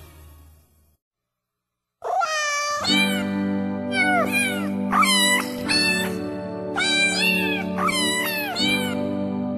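The tail of a piece of music fades out into a short silence. About two seconds in, a novelty song starts in which sampled cat meows, pitched to a melody, are the singing voice over a steady sustained backing.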